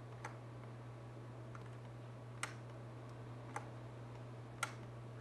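A few sharp, irregularly spaced single clicks from a computer's input devices as the 3D viewport is worked, over a steady low electrical hum.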